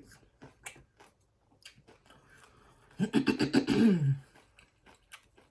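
Close-up chewing and mouth clicks while eating. About three seconds in comes a loud voiced hum of about a second that falls in pitch.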